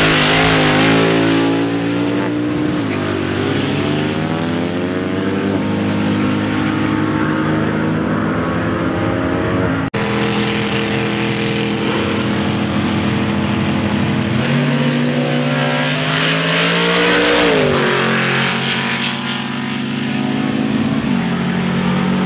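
Drag cars launching from the line at full throttle. The engines climb steeply in pitch and drop back at each gear change as the cars run down the strip.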